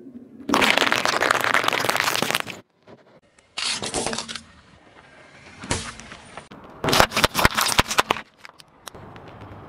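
A car tyre rolling over and crushing things on asphalt in several separate bursts. First comes a two-second burst of squashing and popping as cherry tomatoes are run over, then a shorter crunch, and near the end a quick run of sharp cracks as something brittle breaks under the tyre.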